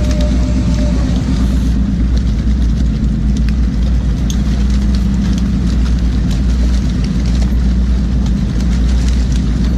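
A boat's engine running steadily with a low hum, with scattered sharp clicks and knocks over it.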